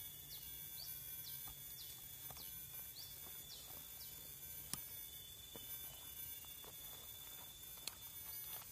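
Quiet outdoor ambience: a steady high-pitched insect drone, with a bird giving short quick chirps about twice a second for the first three or so seconds. A single sharp click comes about five seconds in.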